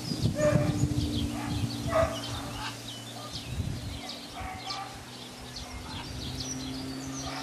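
Outdoor field sound: birds chirping throughout over a steady low hum that drops out briefly twice. Wind buffets the microphone in the first two seconds, with two short, louder animal calls about half a second and two seconds in.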